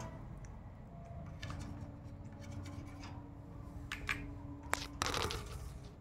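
Rose-ringed parakeet clambering about a wire cage: light clicks and scratches of claws and beak on the bars, with a sharper click and a short rustle near the end.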